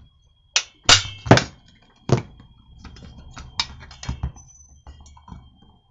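Four sharp hammer blows on the magneto flywheel of a brushcutter's two-stroke engine, each leaving a short metallic ring, knocking the flywheel loose from the crankshaft taper so it is held only by its key. A few lighter knocks and clatter follow as the engine is handled on the bench.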